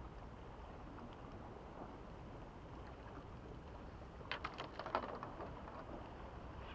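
Steady wash of calm sea water on a rocky shore, with a short run of sharp clicks and knocks about four and a half seconds in as fishing tackle at the water's edge is handled.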